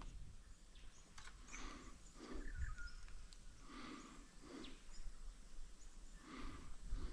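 A person breathing heavily close to the microphone, in huffing in-and-out pairs about every two and a half seconds. Faint bird chirps in the background.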